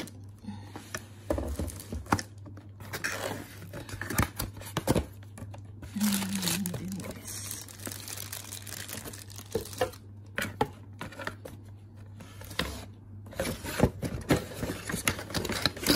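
Plastic bag crinkling and cardboard packaging rustling as a boxed modem is unpacked, with irregular rustles and sharp clicks and knocks from the box flaps and tray.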